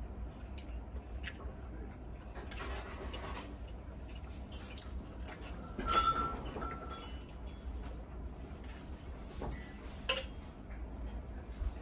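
Knife and fork cutting steak on a hot metal serving plate: scrapes and small clicks of the cutlery against the plate, with a sharp ringing clink about six seconds in and another near ten seconds. A low steady hum runs underneath.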